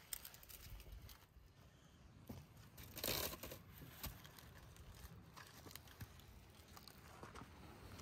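Aluminium foil crinkling and a metal baking tray knocking softly as a foil-covered roasting tray is handled and lifted out of a brick oven. The loudest part is a short rustle about three seconds in.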